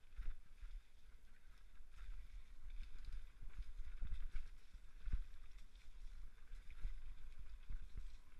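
Mountain bike riding fast down a rough dirt forest trail, heard from a helmet-mounted camera: a steady low rumble of wind and trail on the microphone, with frequent knocks and rattles as the bike hits roots and bumps.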